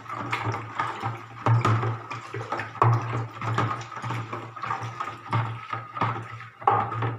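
Acid slurry being poured into a caustic soda and water solution while it is stirred: liquid pouring and splashing with repeated clicks and knocks of the stirrer against the container.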